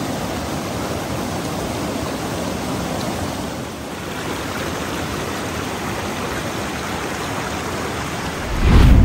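River water flowing in a steady rush. Just before the end a short, loud low rumble cuts in.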